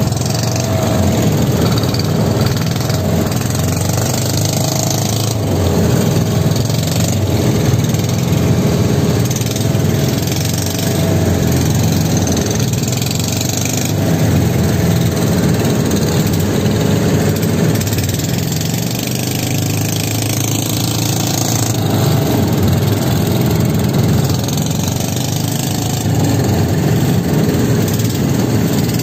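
Motorized outrigger banca's engine running steadily at speed, with water rushing and splashing along the hull.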